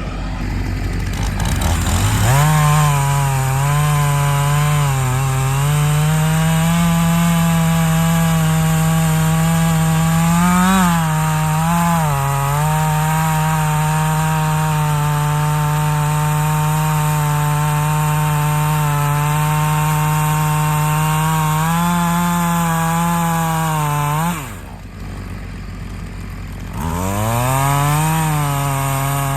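Gas chainsaw cutting through an elm trunk: it revs up about two seconds in and holds at full throttle with small dips as the bar works through the wood, drops to idle for a couple of seconds near the end, then revs up again.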